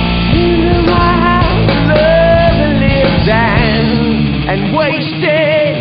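Rock band playing an instrumental passage: a wavering lead melody with vibrato over guitar, bass and drums. The deep bass drops out near the end.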